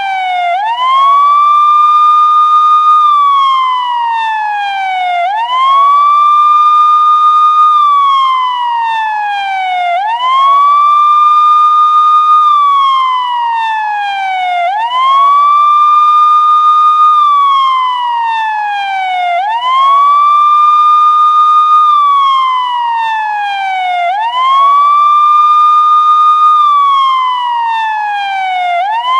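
Police siren sounding its wail: each cycle sweeps quickly up in pitch, holds the high note for about two seconds, then slides slowly back down. The cycle repeats about every four and a half to five seconds, six times over.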